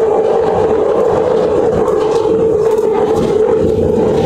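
Glasgow Subway train running through the tunnel, heard from inside the carriage: a loud, steady rumble with a constant droning tone above it.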